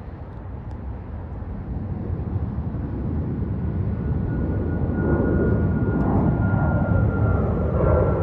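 Boeing 737 MAX 8's CFM LEAP-1B jet engines growing steadily louder as the airliner departs and draws nearer, with a thin high whine coming in partway through and slowly falling in pitch.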